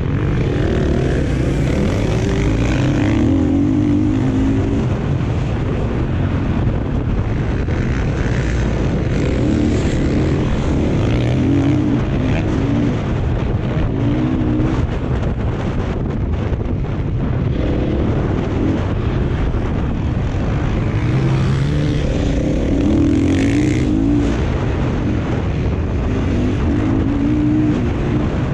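Dirt bike engines running hard, the revs rising and falling again and again as the throttle opens and closes.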